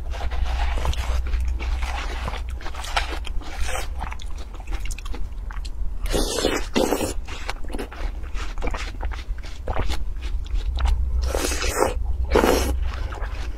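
Close-miked eating of watermelon: a metal spoon scooping the flesh, with wet, crunchy bites and chewing. The bites are loudest about six seconds in and again near the end, over a steady low hum.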